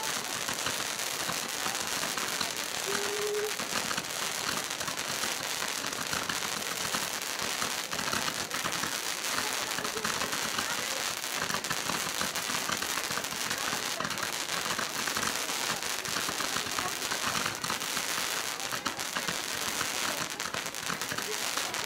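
A fireworks display firing a continuous barrage of ground-launched rising tails, with dense crackling and popping and no break.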